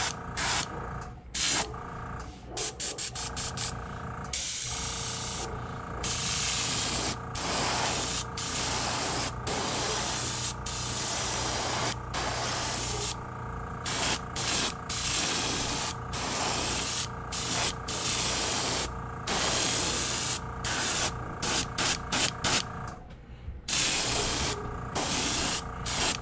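Airbrush spraying paint, hissing in many short bursts as the trigger is pressed and released, over a steady hum.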